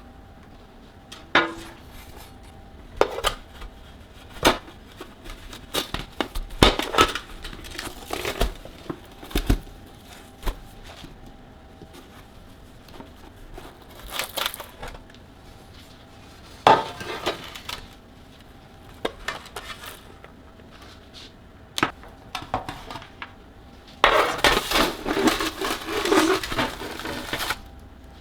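Kitchen dishes and utensils being handled while making kadayıf dessert: scattered knocks and clinks, with a few seconds of continuous handling noise near the end.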